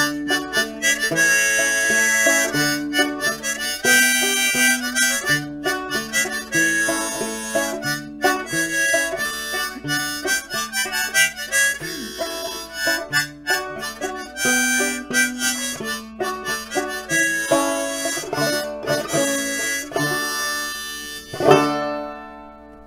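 Harmonica in a neck rack playing the tune over banjo accompaniment, ending on a final strong banjo chord about a second and a half before the end that rings and fades away.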